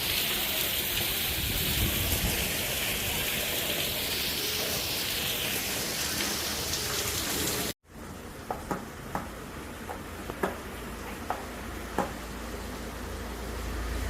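Heavy rain pouring steadily. About eight seconds in it cuts off suddenly to quieter rain, with separate drops landing with sharp ticks now and then. A low rumble builds near the end.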